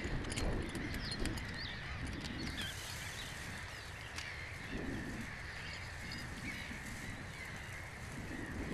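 Common gulls calling in their nesting colony: many harsh, overlapping calls blending into a steady chorus.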